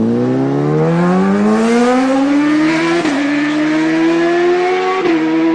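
A car engine accelerating hard, its pitch climbing steadily for about three seconds, then dipping briefly at a gear change and holding high, with another short dip near the end as it shifts again.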